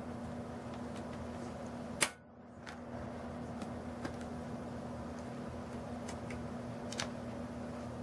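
Clicks and taps from handling a laptop's display panel and plastic frame: one sharp click about two seconds in, then a few lighter ticks, over a steady low hum.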